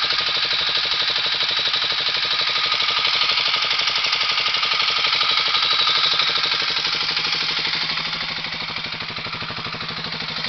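Kawasaki KLX250S single-cylinder four-stroke engine idling steadily, heard close up, with an even mechanical clatter from the timing chain and valvetrain, a little quieter from about eight seconds in. The owner judges the engine noise normal after 3000 km.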